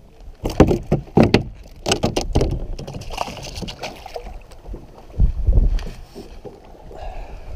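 Sharp knocks and thumps on a plastic kayak's deck as a small northern pike is handled, then a splash about three seconds in as the fish is dropped back into the water, and a heavy low thud a couple of seconds later.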